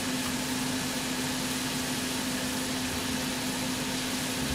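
Steady kitchen hum around a lit gas stove: a constant low drone under an even hiss, with no breaks or sharp sounds.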